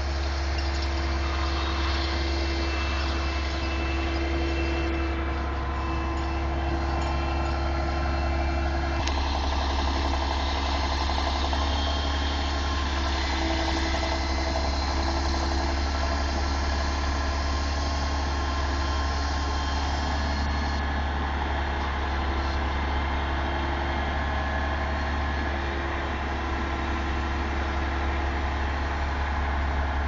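Liebherr mobile crane's diesel engine running steadily with a deep, even hum, its tone shifting slightly about nine seconds in.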